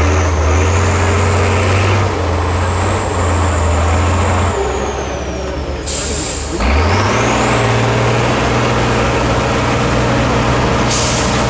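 Tatra 815 trial truck's diesel engine labouring under load on a steep climb, with a high whine rising and falling above it. The engine note drops a little past four seconds in and picks back up about seven seconds in, and a brief loud hiss breaks in about six seconds in.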